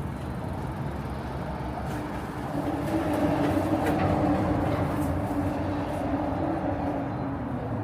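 A vehicle running with a steady mechanical hum and a held droning tone. It grows louder about two and a half seconds in.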